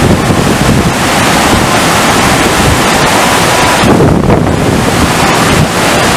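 FlowRider surf simulator's pumped sheet of water rushing loudly and steadily, with wind buffeting the microphone.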